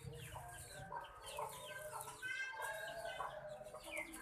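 Talking pet bird giving a run of short clucking, chicken-like calls and chatter, with one longer held call about halfway through.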